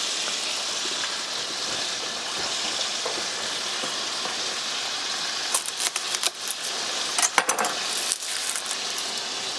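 Skinless pheasant breasts frying in butter and olive oil, a steady sizzle. From about halfway, papery crackles and snaps as a garlic bulb is broken into cloves by hand.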